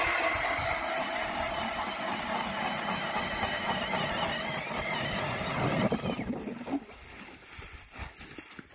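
Power ice auger boring a hole through lake ice, its motor running steadily with a wavering whine, then stopping about six seconds in.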